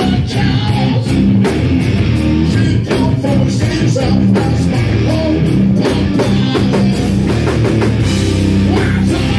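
A live rock band playing loud, with electric guitar and a drum kit driving a steady beat.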